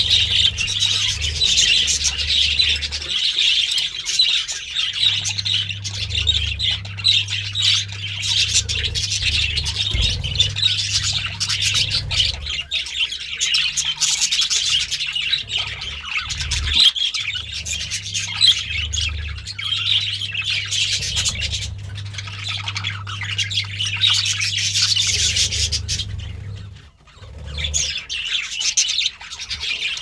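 Budgerigars chattering and warbling without pause, a busy stream of high chirps, with a short lull near the end. A low steady hum runs underneath and drops out now and then.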